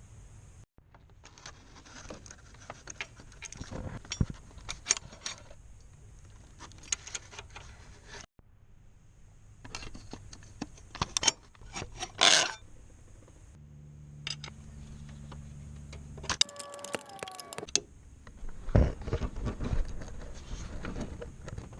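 Hand tools and metal parts clinking and rattling in irregular clusters of sharp clicks during engine-bay work, with a low steady hum for a couple of seconds past the middle.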